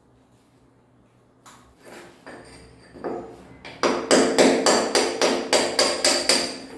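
Hammer striking a chisel against the tiled concrete wall, chipping around a broken pipe elbow. A few scattered knocks give way to a fast, even run of blows, about four a second, each with a metallic ring.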